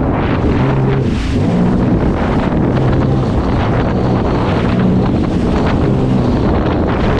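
Sea-Doo Spark Trixx personal watercraft under way, its three-cylinder Rotax 900 ACE engine note stepping up and down with the throttle. Heavy wind buffets the microphone over water spray and chop against the hull.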